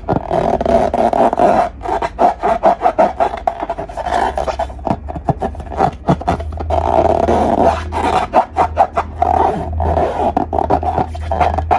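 Slime being squeezed and worked by hand: rapid, irregular sticky clicks and squelches over a steady low drone.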